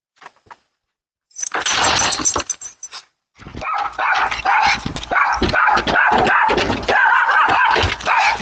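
Dogs barking over and over, picked up by a security camera's microphone. A short noisy burst comes about a second and a half in, and steady repeated barking starts about three and a half seconds in.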